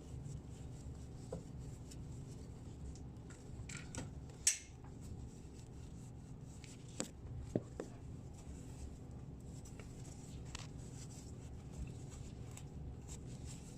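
Faint rubbing and handling sounds of a wet rag wiping a freshly soldered copper pipe joint to cool it and clean off the flux, with a few small clicks and one brief sharper scrape about four and a half seconds in, over a steady low hum.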